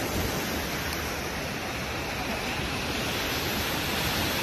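Steady rushing of strong wind across the microphone, mixed with lake waves breaking on the shore.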